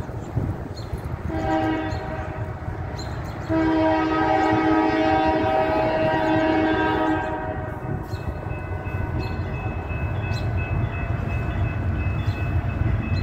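Diesel locomotive air horn of an approaching coal train sounding two blasts, a shorter one and then a longer, louder one about two seconds in, over a steady low rumble.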